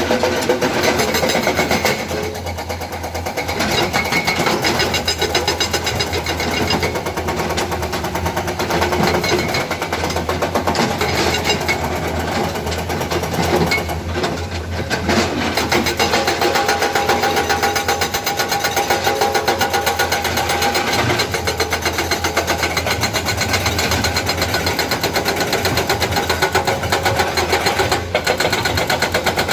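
Hydraulic breaker on a Komatsu excavator hammering in rapid, even blows, with the excavator's diesel engine running underneath.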